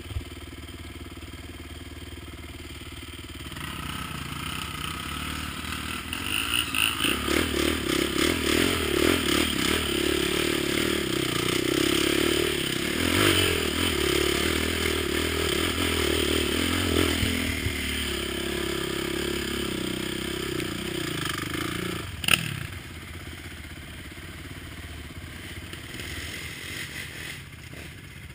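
ATV (quad) engine running under load on a rough trail, growing louder a few seconds in and pulsing hard through the middle stretch. A single sharp knock comes about three-quarters of the way through, and then the engine eases off.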